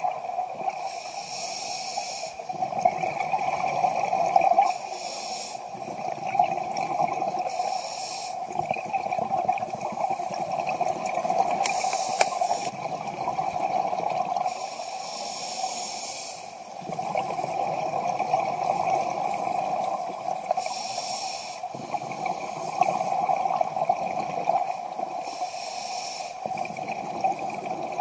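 Scuba diver breathing through a regulator underwater: short hissing inhalations alternating with gurgling bursts of exhaled bubbles, about seven breaths, over a steady hum.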